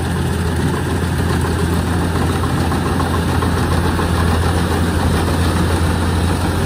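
Kubota DC-105X combine harvester running steadily while it harvests rice: an even, deep engine hum that holds at one speed throughout.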